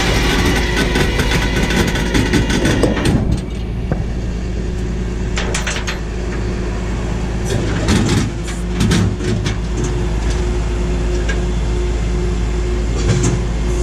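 A flatbed tow truck's engine running steadily, with a few sharp metallic clinks and knocks from the deck partway through.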